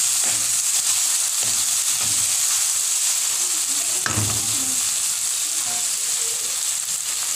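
Chicken, onion and tomato sizzling in oil in a wok as they are sautéed, stirred with a wooden spatula that scrapes the pan now and then, with one louder knock about four seconds in.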